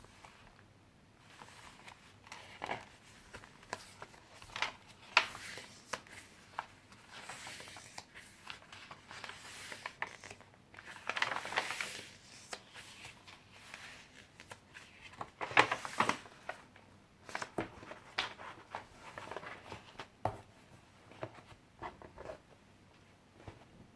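Paper pages of a handmade junk journal being turned and handled: irregular rustling and crinkling swishes with small sharp ticks, the loudest about five, eleven and sixteen seconds in.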